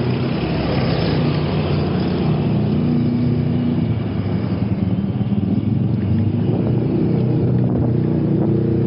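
Road traffic close by: car and motorcycle engines running in a steady drone that shifts a little in pitch, over tyre and road noise.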